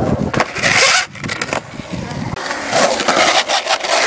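Skateboard wheels rolling on concrete, with a few sharp clacks of the board.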